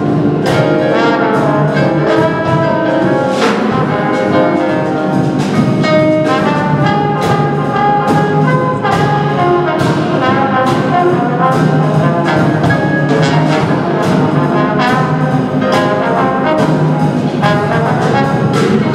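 Small jazz combo playing live: trumpet, alto saxophone and trombone over piano, upright bass and drum kit, with drum and cymbal strokes keeping a steady beat.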